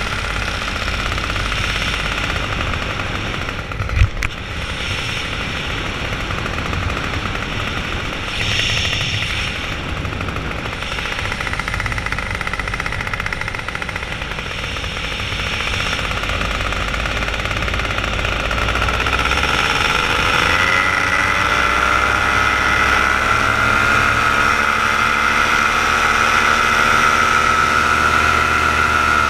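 Paramotor's two-stroke engine and propeller running with a rough, rapid beat and a single sharp knock about four seconds in; about two-thirds of the way through, the engine's pitch rises as the throttle is opened, then holds steady at high power.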